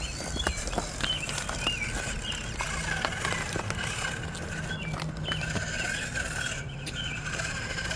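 Small RC rock crawler working over a rocky course: scattered light clicks and knocks, with faint chirps in the first couple of seconds and a steady thin high whine that comes in about three seconds in.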